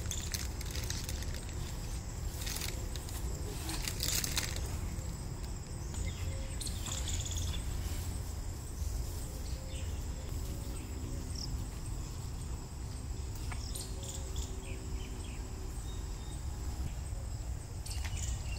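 Outdoor ambience: a steady high insect chirring over a low steady rumble, with a few sharp clicks or knocks a few seconds in.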